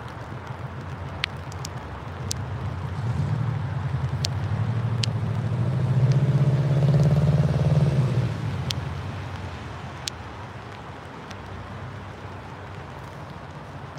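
Low engine rumble and road noise on a wet road swell into a vehicle passing close by about six to eight seconds in, with an engine note that rises and falls, then fade back to a steady rumble.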